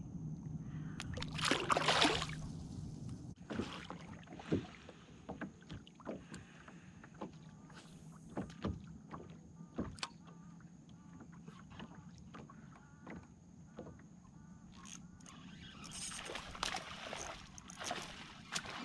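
Water splashing in two bouts, a loud one about two seconds in and another near the end, with scattered small knocks and clicks between, as on a small boat or kayak.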